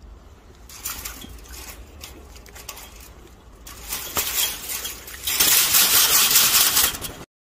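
Scuffling and rustling noise with scattered clicks as a macaque moves about at a chain-link fence. About five seconds in, as the monkey lunges, it turns into much louder, harsh rustling.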